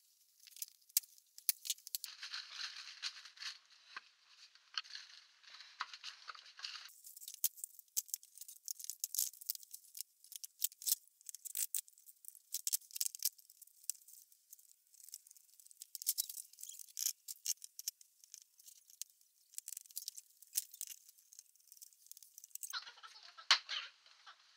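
Newspaper rustling and crackling, with many light clicks and knocks as wooden frame rails and bar clamps are handled and the clamps are closed on a glued-up frame.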